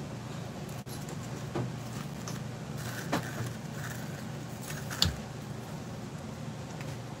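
Steady low background hum with a few light knocks and clicks, about a second and a half, three and five seconds in, the last the loudest, as food and a squeeze bottle are handled at a kitchen counter.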